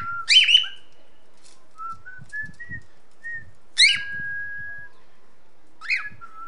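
Young male cockatiel whistling his first song notes: short whistled notes stepping up in pitch between sharp chirps, with one long held whistle about four seconds in.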